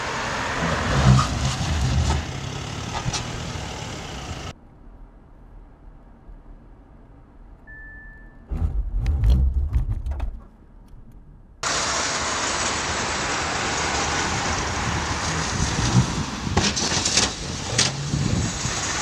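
Audi A4 test car driving at speed on a test track, a steady rush of road noise. About halfway through, heard from inside the car, a short warning beep and then a low rumble as the autonomous emergency braking stops the car short of the target car. Then the noise of cars driving on the track resumes.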